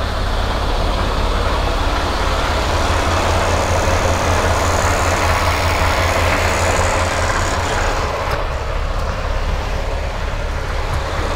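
Semi truck's diesel engine idling steadily, with a constant low rumble under an even wash of engine and fan noise.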